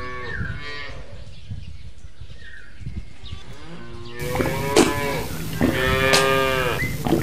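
Cattle mooing: a moo fades out at the start, and after a quieter stretch two long moos follow from about four seconds in.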